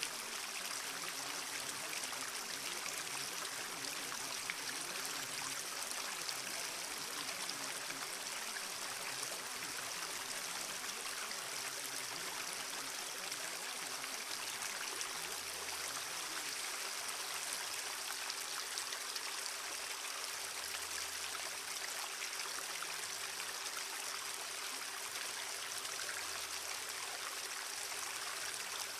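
Steady rush of running water like a stream, unchanging throughout, with two faint steady low tones humming underneath.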